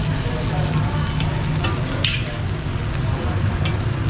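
Fried rice sizzling in a large steel wok while a metal spatula stirs and tosses it, the spatula scraping the wok with a few short, sharp strokes. A steady low rumble runs underneath.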